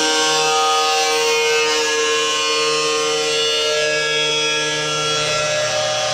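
Cutoff wheel grinding through a 1/16-inch stainless steel sheet, scoring it to about half its thickness so it can be bent by hand. The sound is a loud, steady high whine with a gritty rasp, its pitch shifting a little as the load changes.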